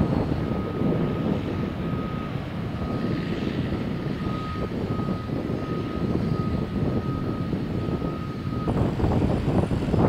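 Steady low engine-like rumble, with a faint high-pitched whine that cuts off sharply near the end.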